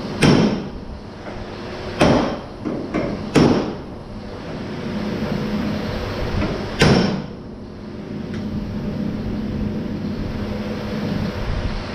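Four loud, sharp knocks, unevenly spaced, each with a short echo in the shop, with a few lighter knocks between the second and third; from about four seconds in, a steady low machine hum runs underneath.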